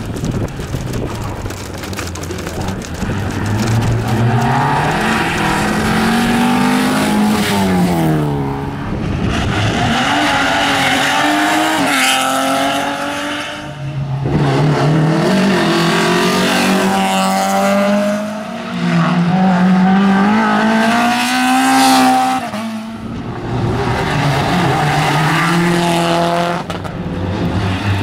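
Rally cars driven hard past the spectators one after another, each engine revving high, the note climbing through a gear and dropping at each shift.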